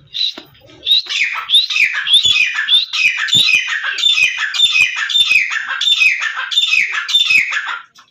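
Grey francolin calling: a loud, high-pitched series of notes, each falling in pitch, repeated about three times a second, starting about a second in and stopping just before the end.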